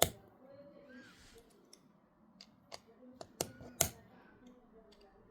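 Plastic Lego bricks clicking and clattering as they are handled and snapped together: one sharp click at the start, then a quick cluster of clicks from about two and a half to four seconds in.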